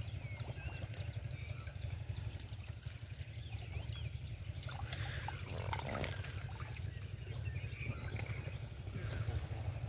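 Hands groping and sloshing in shallow muddy water, with small irregular splashes and trickles and a somewhat bigger splash about six seconds in, over a steady low rumble. A single sharp click comes a little over two seconds in.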